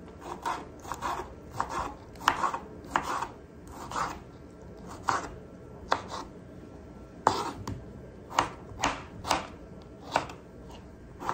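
Kitchen knife dicing a tomato on a wooden cutting board: short, irregular knocks of the blade against the board, a couple a second.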